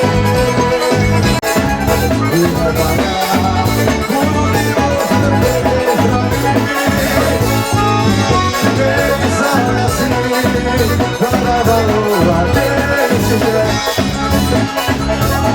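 Band music led by an accordion (sanfona) playing the melody over a steady bass beat, with a shaker keeping time.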